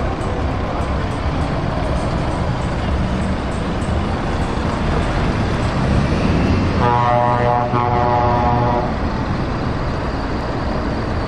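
Scania R450 tractor unit pulling slowly past, its diesel engine running over the steady rumble of a queue of trucks. About seven seconds in an air horn sounds a steady chord for about two seconds, then stops abruptly.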